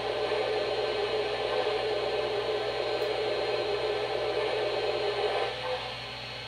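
MTH RailKing Pennsylvania Railroad M1a O-gauge model steam locomotive standing after start-up, its Proto-Sound 2 sound system and fan-driven smoke unit making a steady hiss and whir that drops quieter about five and a half seconds in.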